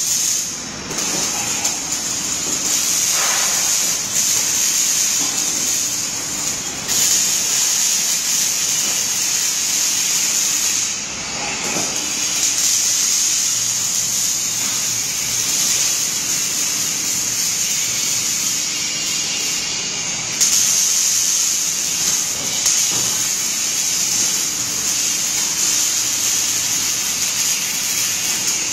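Robotic arc welder's arc burning with a steady, crackling hiss. It breaks off briefly about three times as the torch moves from one weld to the next.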